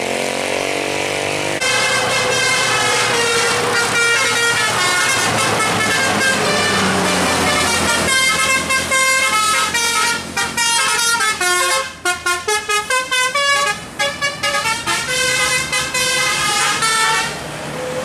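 Basuri telolet multi-note air horn on a Bima Trans tour bus playing a tune, over the bus's engine. It holds longer notes that step in pitch at first, then switches to a quick run of short staccato notes for the last several seconds.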